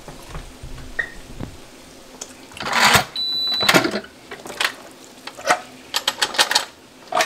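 Electric pressure cooker's metal lid being twisted open and lifted off, scraping and clattering, with a short high beep about three seconds in, followed by a quick run of clicks and knocks.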